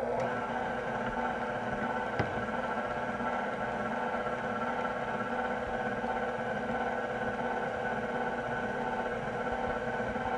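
Electric tilt-head stand mixer running at a steady speed, its motor humming as the beater works the potato lefse dough. A single click about two seconds in.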